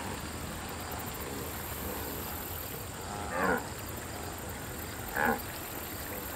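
Two short wildebeest grunts about two seconds apart, over a steady background hiss.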